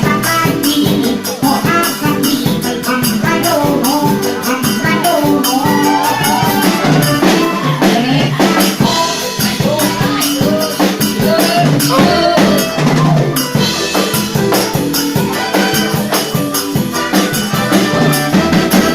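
Live band playing a southern Thai song: steady drums and a shaker keep a quick beat under a wavering lead melody.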